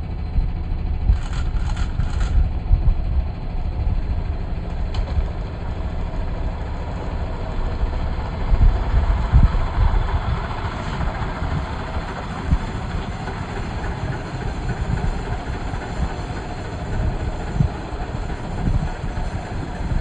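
Safari vehicle engine running with a heavy, uneven low rumble; three short high-pitched sounds come close together about a second in.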